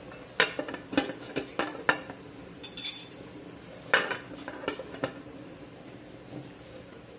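Metal pot lid clinking against the rim of a metal cooking pan as it is set down and shifted into place. There are several sharp metal clinks in the first two seconds and another cluster about four to five seconds in.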